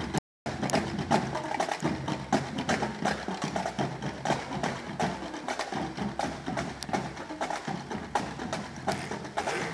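Marching drumline playing a fast cadence of drum strikes, with a brief dropout in the audio just after the start.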